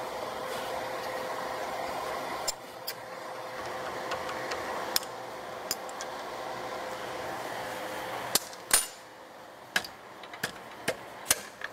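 Light metallic clicks and clinks as a spanner works the nut off a shock absorber shaft and the parts are handled, over a steady hum. The hum stops about eight seconds in, and a few sharper clicks follow.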